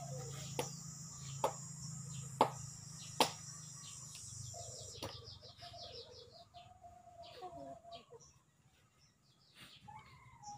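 Yard ambience: chickens and other birds calling, and a high, steady insect buzz that stops about halfway through. Four sharp clicks come in the first few seconds.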